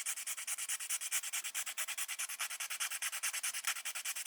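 A small hand file scraping back and forth on the edge of a micro-drone frame to enlarge a mounting hole, in rapid, even strokes about six a second.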